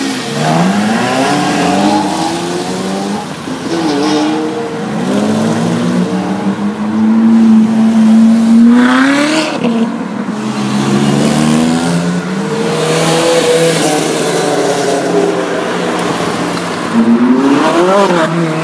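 Ferrari sports cars, among them an F355, an Enzo and a 458 Italia, driving past one after another, their engines revving up and easing off as they pull away. A long climbing rev ends in a sharp burst about nine seconds in, and another quick rev comes near the end.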